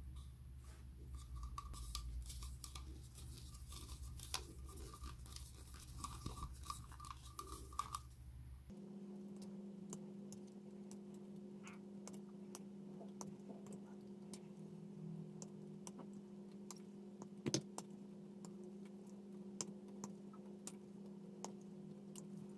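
Faint small clicks and taps of hard plastic model-kit parts being handled and fitted together. From about 9 s in, sharp snips of side cutters clipping plastic parts off the sprue, one louder snip in the second half, over a steady low hum.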